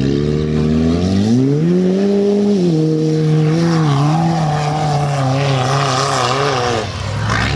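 Formula Offroad buggy's engine revving hard as it climbs a steep sand slope: the pitch rises over the first two seconds, then holds high and wavers with the throttle, breaking off briefly near the end.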